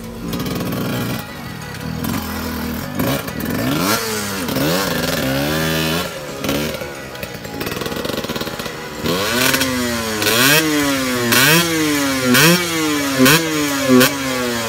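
Dirt bike engine revving, its pitch rising and falling repeatedly. About nine seconds in, the revs turn into a series of sharp throttle blips, roughly one a second.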